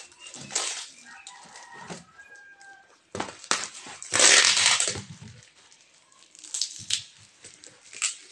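Cardboard parcel being torn open by hand: rough ripping and scraping of the cardboard and tape in irregular bursts, the longest and loudest rip about four seconds in.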